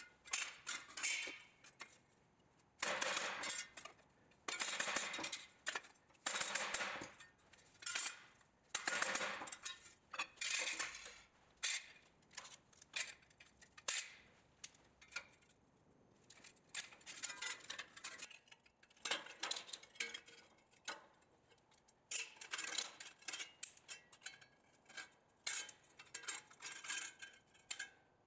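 16-gauge sheet steel pieces clanking and clinking against a steel workbench as they are folded with locking pliers, in a series of separate metallic clinks and scrapes, louder and more spaced in the first half, lighter and quicker later.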